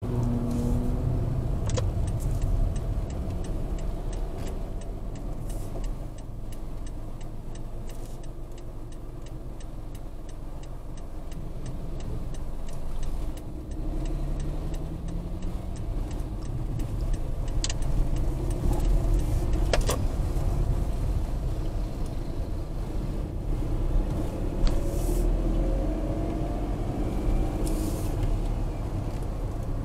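Car cabin noise picked up by a windscreen dashcam while driving: a steady low engine and tyre rumble, with the engine pitch rising a couple of times as the car speeds up. A few sharp clicks stand out, one near the start and two a little past the middle.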